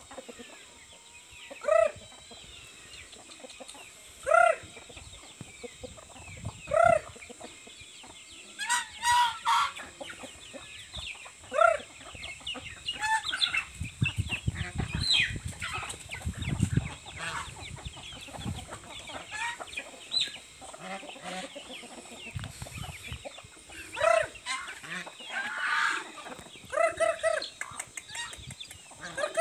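A free-ranging flock of chickens clucking and calling, with short loud calls every two to three seconds. A stretch of low rumbling comes around the middle.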